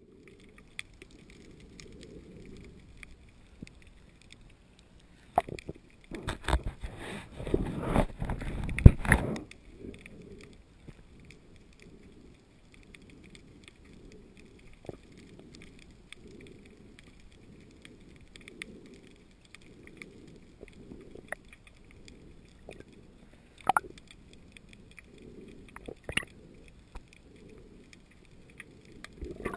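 Underwater sound picked up by a camera in a waterproof housing: a muffled low rush of water with slow, regular swells, a louder jumbled stretch of noise from about six to nine seconds in, and a few sharp clicks near the end.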